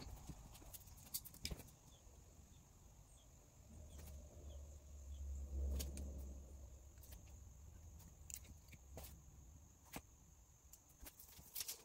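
Quiet workshop room tone with a faint steady high whine and scattered light clicks and taps from hands working at the car's rear glass; a low rumble swells about four to seven seconds in.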